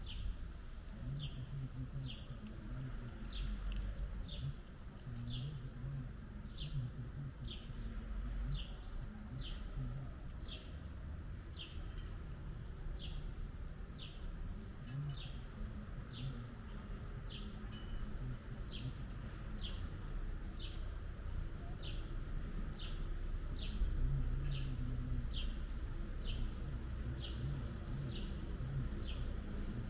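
A small bird chirping over and over: short, sharply falling chirps, about one to two a second, with a low background rumble.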